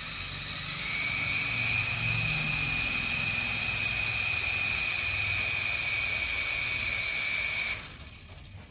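Mini coaxial RC helicopter's small electric motors and rotors spinning, giving a steady high whine that gets louder about a second in. The motors cut off sharply near the end and the rotors wind down.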